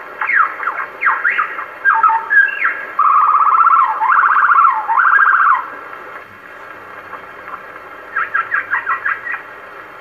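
Superb lyrebird song played from a 78 rpm disc on an acoustic Victor Victrola gramophone, thin and hissy. A run of sliding whistled notes gives way to a fast pulsing trill lasting about two and a half seconds, then a pause with only record hiss, and a quick burst of short notes near the end.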